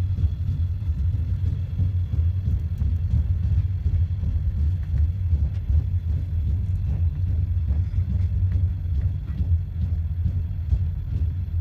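Train running along the track: a steady low rumble with faint scattered clicks.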